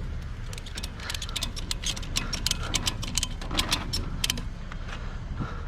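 Rapid mechanical clicking in three or four quick runs, like a ratchet being worked.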